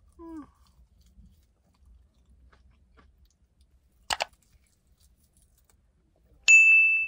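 Faint chewing, with a short hummed 'mm'. About four seconds in comes a sharp mouse-click sound effect, and near the end a loud, steady, high ding, both from a YouTube subscribe-button animation.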